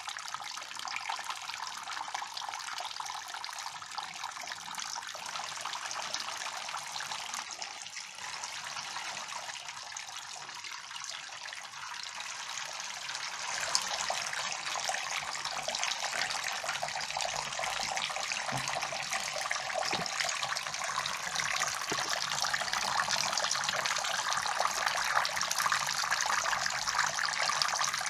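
Small homemade tabletop waterfall running: thin streams of water falling from a rail onto pebbles in a basin, a steady trickling splash that grows a little louder about halfway through.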